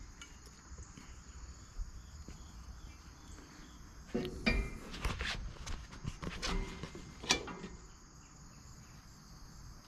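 Cast iron Dutch oven being lifted and turned on its bed of charcoal: a few knocks and clanks of metal about four to seven seconds in, over a steady hum of insects.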